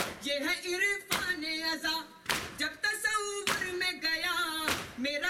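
A crowd of mourners beating their chests in unison (matam), four sharp slaps about a second and a quarter apart, between them a male voice chanting a noha in long, wavering notes.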